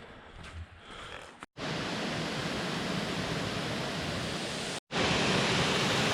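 Steady rushing roar of a waterfall. It cuts in abruptly about a second and a half in and gets louder after a brief dropout near five seconds. Before it, a quieter stretch holds a couple of short bird chirps.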